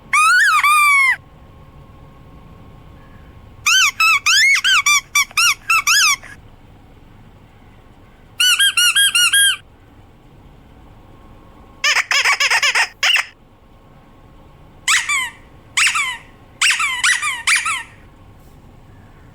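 Squeaky dog toy being squeezed in bursts: one long squeak that rises and falls in pitch, then clusters of quick high squeaks with pauses of a couple of seconds between them.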